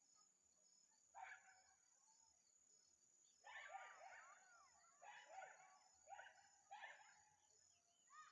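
A dog barking faintly and repeatedly in short calls, with a quick cluster of barks in the middle, over a steady high insect drone.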